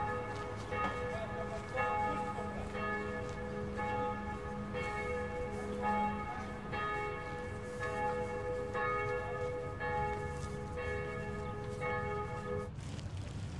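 Church bells ringing, bells struck in turn about once a second, the ringing cutting off suddenly near the end.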